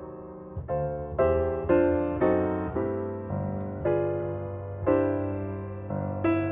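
Background piano music: notes and chords struck every half second or so, each ringing and fading before the next.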